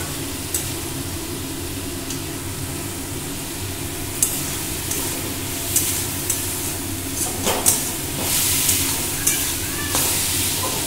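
Chicken and chopped vegetables sizzling in a metal wok as the chicken gives off its water. A spatula scrapes and taps the pan every second or two while stirring.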